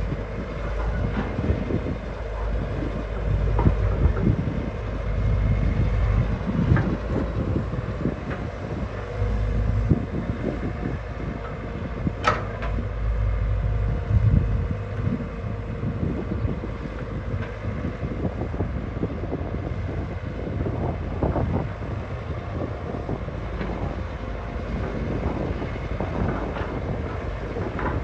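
Hyundai 220LC excavator's diesel engine running under load as it works, with repeated knocks and clanks, and one sharp clank about twelve seconds in.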